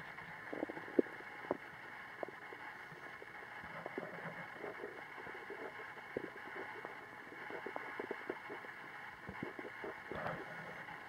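Human stomach gurgling: an irregular string of small pops and gurgles over a steady hiss, with one sharper pop about a second in.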